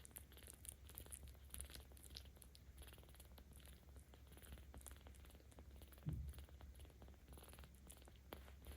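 A 17-day-old kitten purring in a low, steady rumble, with one short louder thump about six seconds in.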